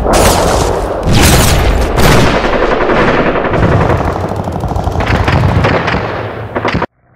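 Loud battle sound effects: rapid machine-gun fire and gunshots over a dense din of blasts, with a fresh loud burst about every second, cutting off abruptly near the end.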